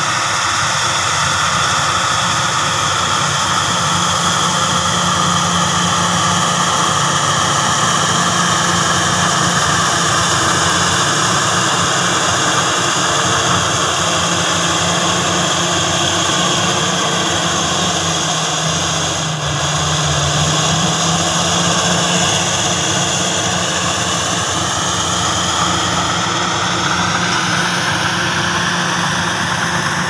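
Crawler bulldozer's diesel engine running steadily as it pushes and levels soil, with an excavator working close by; the engine note shifts briefly about two-thirds of the way through.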